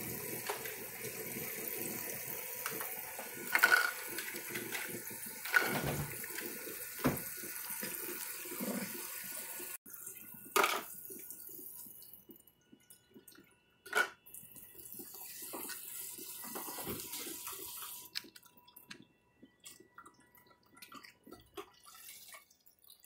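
Toy play-sink faucet running a thin stream of water into a plastic basin while java macaques rummage through it, with several sharp knocks of plastic dishes and cups being handled. The running water is louder in the first ten seconds, then drops to a softer trickle.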